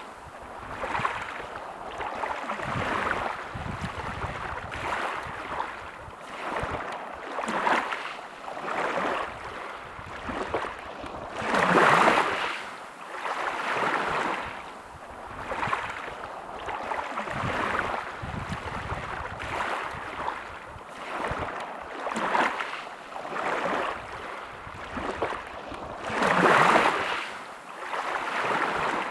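Sea waves lapping and washing ashore in quick, uneven surges, with two bigger washes about twelve seconds in and near the end. A low rumble of wind on the microphone sits beneath.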